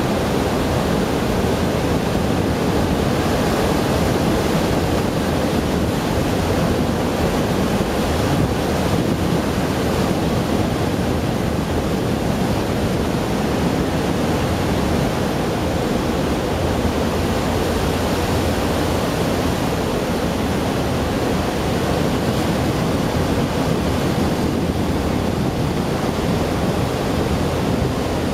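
MSC Orchestra's bow thrusters running at full load, churning the water beside the pier into a steady, deep rushing of turbulent water as the ship is pushed sideways off the quay.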